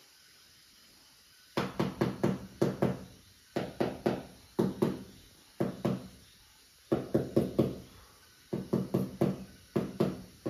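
Sharp knocks in quick runs of about three to six, about six runs with short pauses between them. Each knock has a brief, hollow ring.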